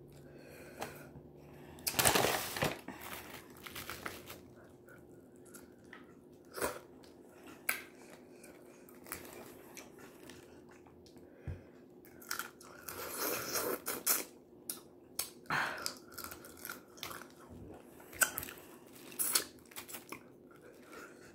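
Boiled crawfish being peeled and eaten up close: shells cracking and tearing apart, with chewing in between, in short irregular bursts.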